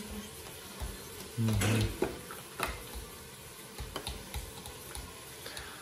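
Light, irregular clicks and knocks of kitchen utensils and dishes being handled, with a brief voice sound about a second and a half in.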